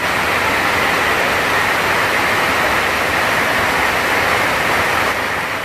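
Heavy rain falling on a sheet-metal roof, a loud steady hiss.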